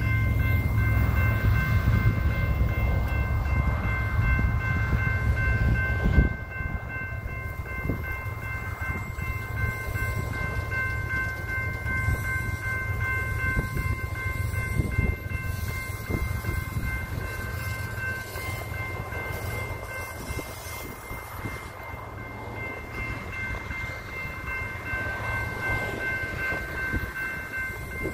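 Freight train of autorack cars rolling past: steady wheel-on-rail noise with irregular clicks from the wheels over rail joints, and a heavy low rumble that drops away about six seconds in. Over it, the grade crossing's warning bell rings steadily the whole time.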